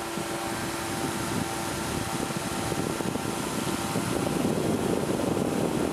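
Powered parachute's engine and pusher propeller droning steadily in flight, with a rushing noise that grows louder over the second half.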